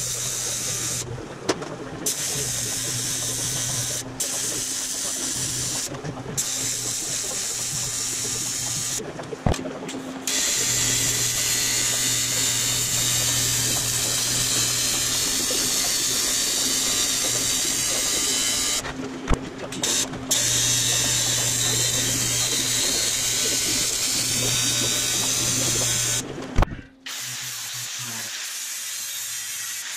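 AC TIG welding arc on aluminum sheet, buzzing and hissing steadily in long runs broken by short gaps where the arc stops. Near the end it gives way to a quieter, steady hiss of a handheld grinder sanding the aluminum weld seam.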